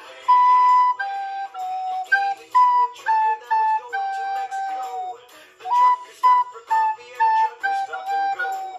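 Plastic soprano recorder playing a bouncy, jazzy riff of short, separate notes that hop among a few neighbouring pitches, with brief breaths between phrases.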